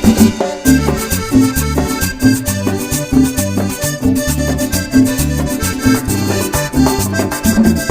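Instrumental break of a Venezuelan swing criollo dance song: accordion lead over a steady, bouncing bass and percussion.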